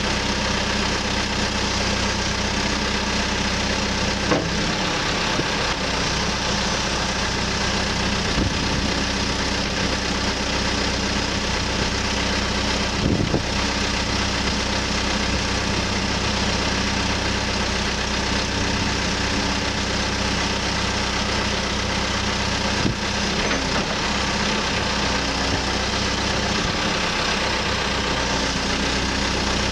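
CAT 430E backhoe loader's diesel engine idling steadily, with a few single knocks scattered through.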